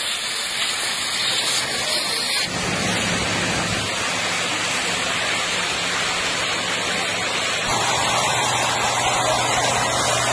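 Rushing hiss of high-pressure water jets from fire hoses spraying into a burning building. A low steady hum joins underneath after a couple of seconds.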